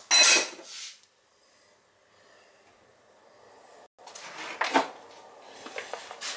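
Kitchen handling noises as chopped vegetables go into a roasting pan: a short rustling clatter at the start, then near quiet, then scattered knocks and rustles in the second half.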